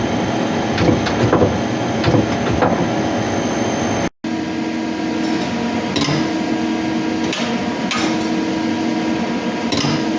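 Hyundai HIT 8 S CNC lathe running: a steady machine noise with irregular sharp clicks and knocks, and a humming tone that cuts in and out every second or two.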